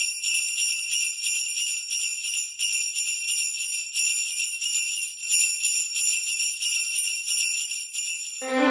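Sleigh bells jingling, shaken over and over in a rhythmic shimmer of high-pitched ringing. Fuller orchestral music comes in near the end.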